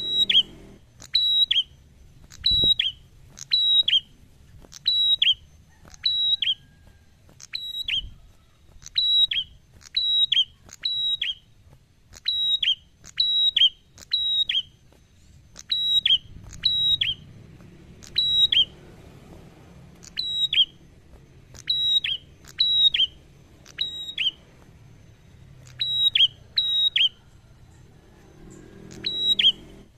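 A caged prenjak, a rufous-headed tailorbird, calling over and over: loud, sharp, high whistled notes that each drop quickly in pitch, repeated about once a second with a few short pauses.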